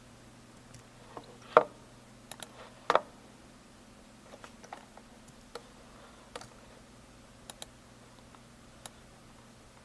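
Computer keyboard keystrokes and mouse clicks, a dozen or so short clicks at irregular intervals, the two loudest about a second and a half and three seconds in, over a faint steady low hum.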